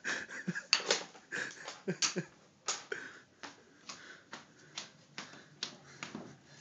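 Footsteps creeping along a floor, a sharp tap about every half second, mixed with clicks from the phone being handled and a few breathy puffs in the first three seconds.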